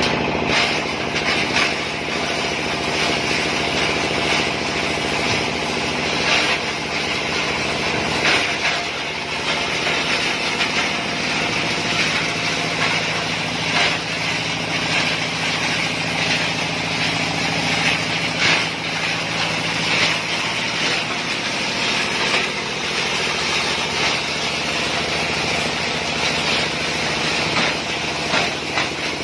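Plastic shredding machine running steadily, with frequent irregular sharp cracks as plastic is chopped in it.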